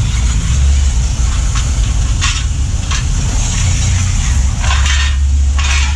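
Pressure washer running: a steady low motor rumble under a hissing water jet that surges louder four times.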